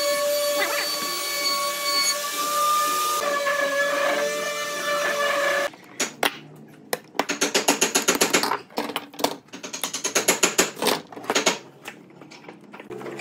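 A power tool's motor running with a steady high whine, which cuts off suddenly about halfway through. Then come two quick runs of rapid rasping strokes on wood.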